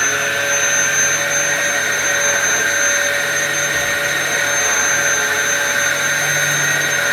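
Vacuum cleaner motor running steadily at full speed with a high whine, having just spun up.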